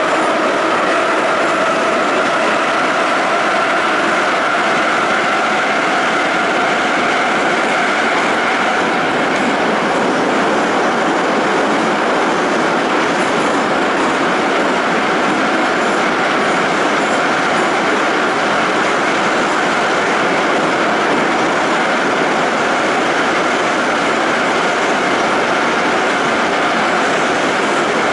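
An 81-717/714 metro train running at speed, heard from inside a passenger car: a loud, steady noise of wheels on rails. A faint whine is there at first and fades out about ten seconds in.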